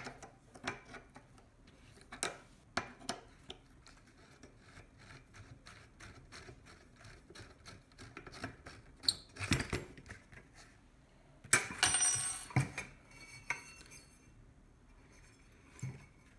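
A screwdriver working a small screw out of an antique globe's metal meridian ring: a steady run of light metallic clicks and scrapes, with a louder knock about nine seconds in and a second-long scrape of metal a couple of seconds later.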